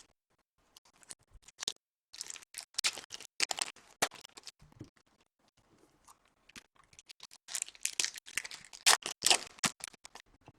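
Foil trading-card pack wrappers crinkling and tearing as packs are opened and cards handled: quick crackles in two busy spells with a quieter lull between.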